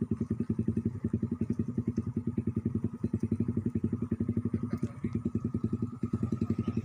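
Small engine running steadily at an even speed, a fast, regular putter of about eleven beats a second.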